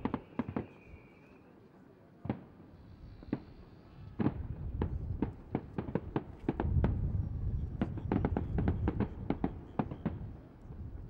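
Fireworks bursting overhead: a few scattered sharp bangs at first, then from about four seconds in a rapid run of many bangs and pops over a low rumble.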